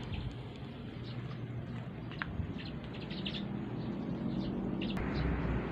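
Small birds chirping, with short high calls scattered throughout over steady outdoor background noise and a low hum; the background noise grows louder near the end.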